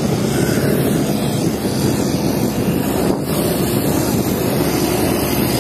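Steady wind noise rushing over the microphone while cycling.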